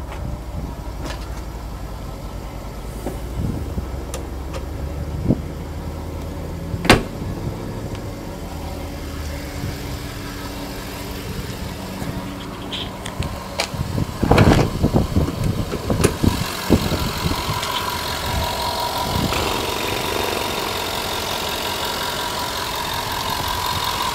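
2011 Jaguar XF's 5.0-litre V8 idling steadily, heard louder and brighter near the end once the hood is up. A single sharp thump comes about seven seconds in, and a cluster of knocks and handling noise comes around the middle.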